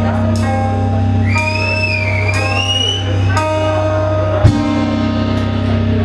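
Live rock band playing: distorted electric guitars and bass holding heavy low notes over drums. A high wavering tone slides upward about a second and a half in, and a sharp hit lands near the end.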